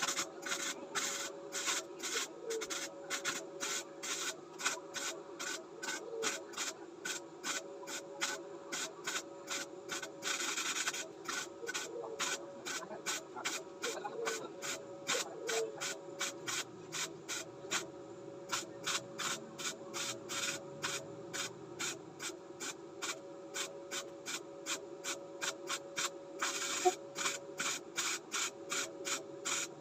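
Daiden 135XL MIG welder arc crackling in rapid, irregular pops, with a steady hum under it throughout.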